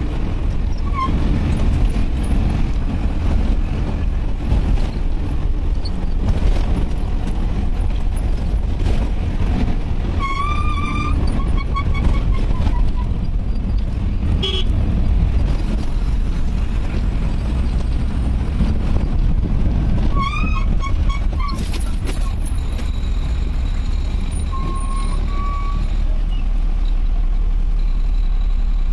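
A vehicle on the road, its engine and road noise making a steady low rumble, with a horn sounding in short wavering toots about ten seconds in and again about twenty seconds in.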